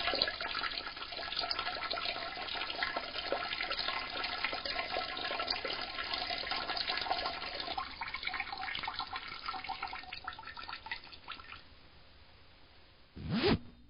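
A stream of urine splashing into the water of a toilet bowl, steady for several seconds and then tapering off and stopping about three-quarters of the way through. A brief sound comes just before the end.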